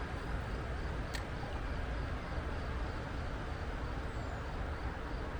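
Steady rushing of a mountain stream's flowing water, with one sharp click about a second in.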